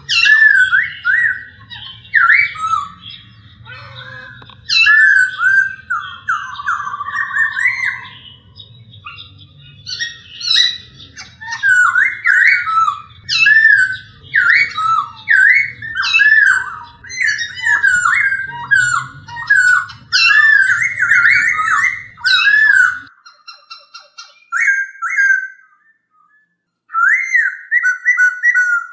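Poksay hongkong laughingthrush singing: loud, rapid runs of rising and falling whistled phrases, repeated one after another with brief pauses.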